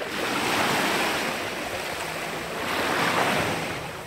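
Small sea waves washing up the sand at the water's edge, the surf swelling twice.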